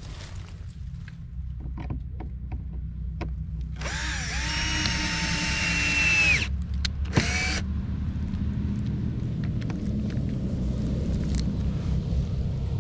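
Cordless drill/driver running for about two and a half seconds as it drives a screw into the wooden wall boards, then a short second burst. A steady low rumble sits underneath throughout.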